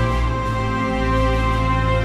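Background music: soft, sustained chords over a steady low bass.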